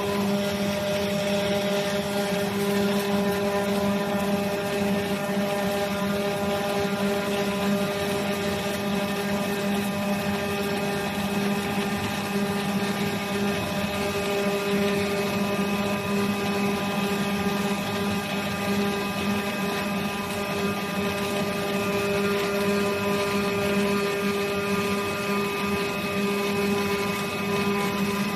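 CNC cutting machine running with a pneumatic oscillating knife: a steady mechanical hum with an unbroken buzzing tone and a constant hiss.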